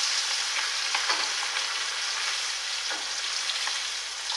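Crayfish deep-frying in a wok of very hot oil, a dense steady sizzle that eases slightly as it goes on. This is the third quick pass through hot oil for salt-and-pepper crayfish.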